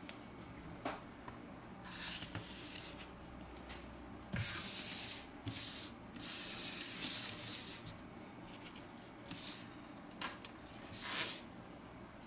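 Hands, one in a cotton work glove, handling a tablet's LCD panel and frame on a bench: scattered light taps and clicks, with a few short hiss-like rubs, the loudest about four seconds in.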